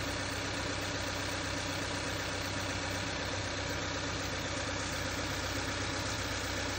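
Subaru Forester's flat-four boxer engine idling steadily.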